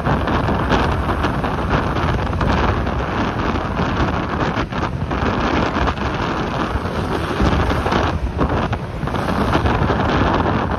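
Steady, loud rush of wind buffeting the microphone while riding along a road, with a low rumble underneath.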